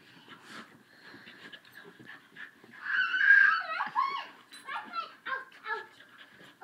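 Dogs play-wrestling, with a loud, high whining cry about three seconds in that lasts about a second, then a run of short whimpers and yips.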